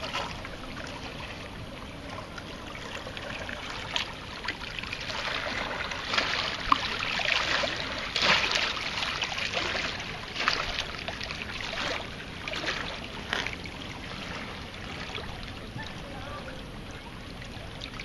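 River water lapping and sloshing against shoreline rocks, with irregular louder surges of splashing.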